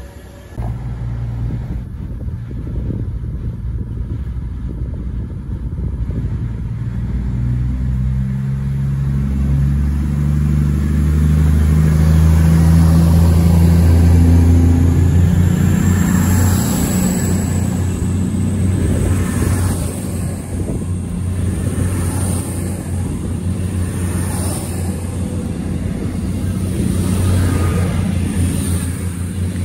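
A passenger train moving past close by: a low rumble of wheels on rail with a motor hum that rises in pitch as it gathers speed, loudest in the middle.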